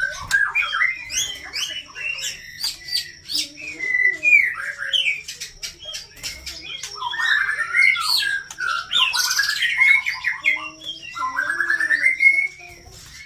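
White-rumped shama (murai batu) singing: a varied, continuous run of whistles, slurred notes and rapid trills, mixed with sharp clicking notes.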